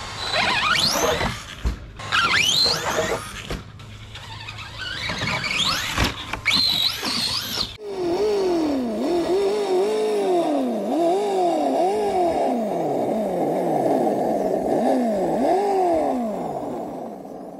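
A 1/10-scale Bigfoot RC monster truck's motor whining in several steep rising bursts as it is throttled up, with a couple of thumps. About eight seconds in this gives way to background music with repeating swooping tones.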